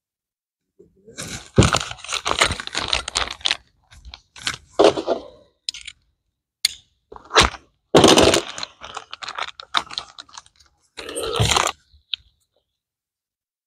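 Clear plastic sheeting crinkling and rustling as it is handled, in irregular bursts with a few sharp clicks between them.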